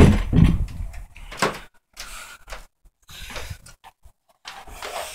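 Handling noise while an electrical plug is pushed into an outlet: a sudden loud thump at the start, then scattered scrapes, rustles and small knocks.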